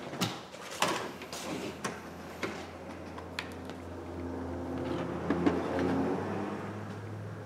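Light clicks and knocks of phone parts and tools being set down and picked up on a work mat. After that comes a low, steady hum with a few held tones that grows louder for a few seconds and then eases off.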